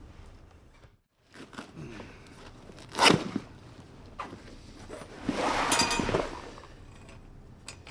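Hand work on a convertible top's fabric and glued tension bar. Scattered clicks and rustles, a sharp crack about three seconds in, and a longer rasping scrape near six seconds as the glued material is pulled.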